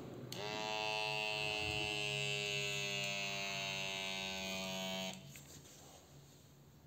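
Sanitas SBC 26 wrist blood pressure monitor's small electric air pump inflating the cuff: a steady motor whine that starts a moment in and cuts off suddenly about five seconds later, once the cuff is pumped up to about 196 mmHg.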